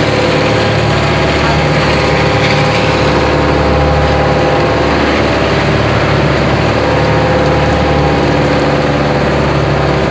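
Fishing boat's engine running at a steady speed, a loud, even drone with no change in pitch.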